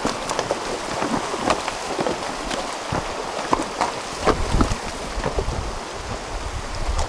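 Horses wading across a shallow, rocky creek: water splashing and churning around their legs, with many sharp splashes and hoof knocks on the stones over the rush of the stream. A low rumble comes in about four seconds in.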